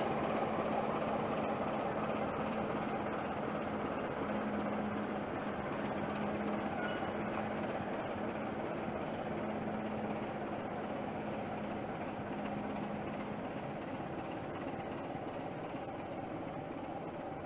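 BR Class 27 diesel locomotive's six-cylinder Sulzer engine running as the locomotive draws slowly away, a steady rumble with a hum that fades out about two-thirds of the way through.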